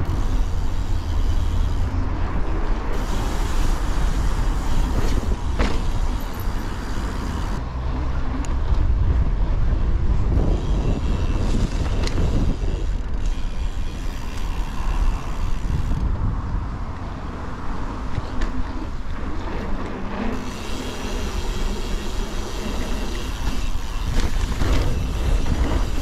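Riding a mountain bike over paving: a steady low wind rumble on the action-camera microphone and tyre noise, with a few sharp knocks and rattles from the bike over bumps.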